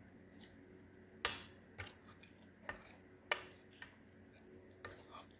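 Metal spoon clinking and scraping against a ceramic plate while rice is scooped up. There is a scattered series of sharp clinks, the two loudest about a second in and about three seconds in.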